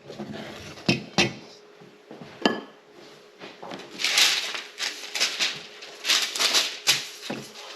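Kitchen utensils and dishes handled: a few sharp clinks of a metal spoon against dishware, one with a short ring, then several short scraping strokes.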